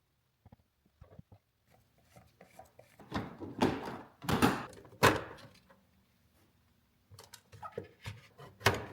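Knocks, thuds and clatter of hard objects being handled, loudest in a cluster of heavy knocks a few seconds in, with lighter clicks near the end.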